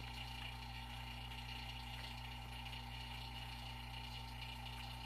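Electric AC vacuum pump running with a steady hum, pulling the car's air-conditioning system down to vacuum.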